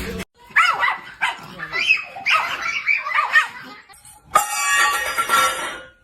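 Dog yipping and barking: a run of short high calls, then a longer, harsher call about four and a half seconds in.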